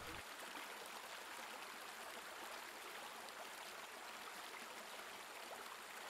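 Shallow stream running over rocks and stones: a steady, faint rush of water.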